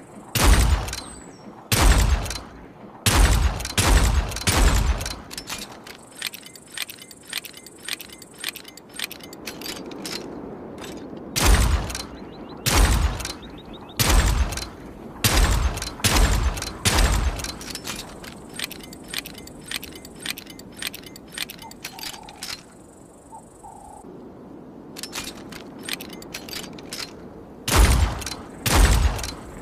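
Revolver gunshots, fired in irregular groups of several shots with pauses between, each shot sharp with a short ringing tail. Many fainter sharp clicks fall between the shots.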